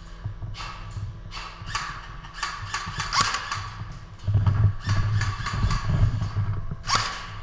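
Clusters of short, sharp clicks and knocks, several a second, the loudest about three seconds in and near the end, over a steady low hum.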